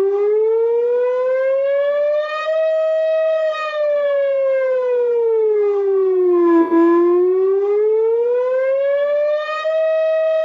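Emergency alert siren wailing: a single tone that rises slowly for about two and a half seconds, holds briefly, falls over about three seconds, then rises and holds again near the end.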